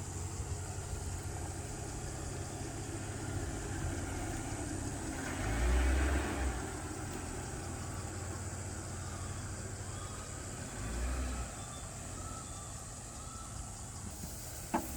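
Jeep engine running at low speed with a steady low rumble, swelling briefly a little before the middle and again about two-thirds of the way through, as the vehicle is eased into position.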